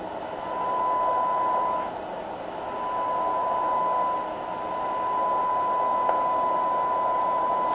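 Hallicrafters SX-71 shortwave receiver's speaker giving a steady high-pitched test tone over a bed of hiss: the signal generator's modulated carrier tuned in at 3 megahertz. The loudness swells and dips a few times.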